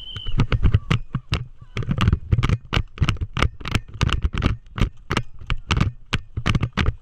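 A fast, irregular series of sharp knocks and clicks with rattling, about four a second, heavy at the low end throughout.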